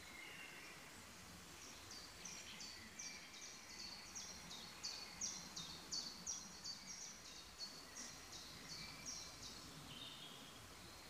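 A small songbird singing a long run of short, high, evenly repeated notes, about three a second, starting about two seconds in and stopping near the end, over faint outdoor background noise.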